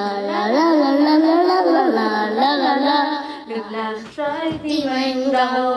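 A child and a woman singing a pop song into wireless karaoke microphones, their voices amplified through a small portable karaoke speaker, with short breaks between phrases.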